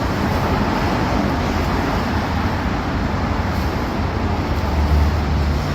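Steady road traffic on a city street, with a deeper low engine rumble building near the end.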